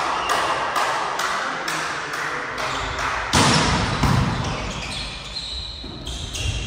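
An indoor volleyball rally: the ball being struck by players' hands and forearms, a string of sharp echoing knocks, the loudest just after three and a half seconds in and again about half a second later.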